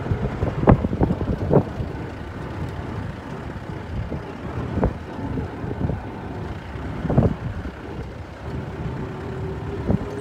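Wind buffeting the microphone: a low rumble with irregular thumps and gusts, and a faint steady hum coming in near the end.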